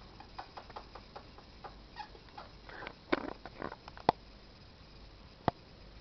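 Budgerigars making short soft chirps among small scattered clicks and taps. A louder burst of chatter comes about three seconds in, followed by two sharp clicks.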